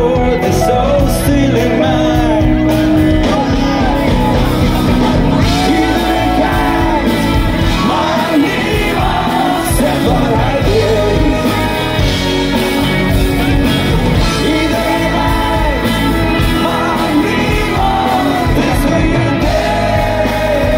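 Live pop-rock band playing on stage, with electric guitars, bass and drums under a lead vocalist singing into a microphone.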